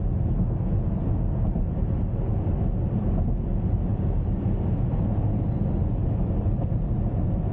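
Steady road and engine noise inside a car's cabin while driving at highway speed, mostly low in pitch and without change.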